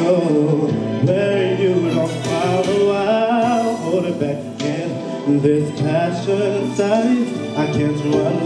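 A singer's voice into a handheld microphone, held and gliding notes over musical accompaniment with a steady bass.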